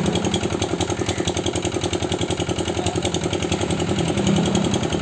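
Small engine-driven water pump running steadily at a constant speed with an even, rapid putter. It circulates water through the hoses into a borehole being drilled by hand.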